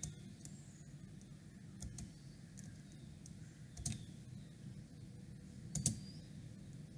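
A few faint clicks on a computer, roughly two seconds apart, over low room hiss.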